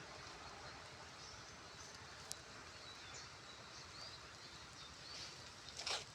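Faint outdoor ambience: a steady hiss with a few faint, short, high bird or insect chirps. A single sharp click comes about two seconds in, and a brief louder scuffing noise comes near the end.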